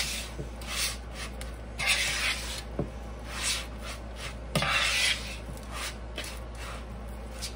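A bare hand kneading raw ground beef with egg and crushed saltine crackers in a mixing bowl: irregular wet squishing and rubbing against the bowl, with a few faint clicks.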